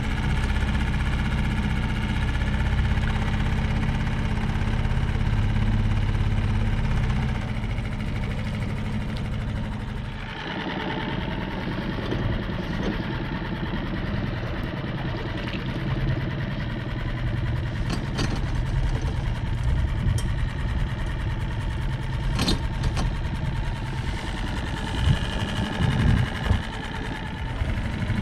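Motor engine running steadily, its sound changing about ten seconds in, with a few light knocks later on.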